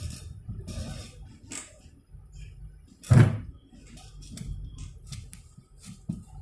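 Clicks and knocks of computer hardware and cables being handled on a workbench, with one louder thump about three seconds in.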